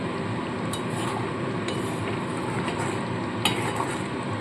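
Thick milk-based curry gravy bubbling in a metal wok while a metal spatula stirs it, clicking against the pan a few times.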